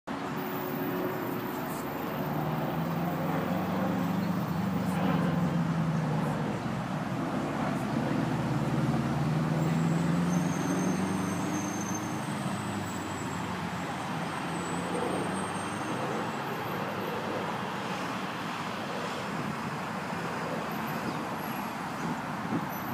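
Steady road traffic. The engine hum of passing vehicles swells and fades twice in the first half, then settles to an even wash.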